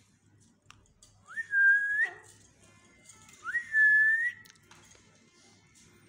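Two whistles about two and a half seconds apart, each sliding quickly up to one clear note, holding it for about half a second and flicking up at the end.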